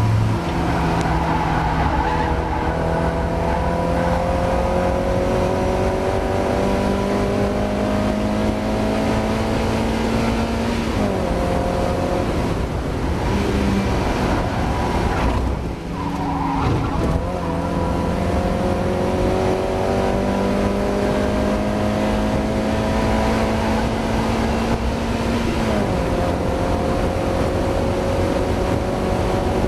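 Mazda MX-5 race car's engine pulling hard on track. Its pitch climbs slowly through each gear and drops sharply at shifts or lifts about a third of the way in, near the middle and near the end, over steady tyre and wind noise.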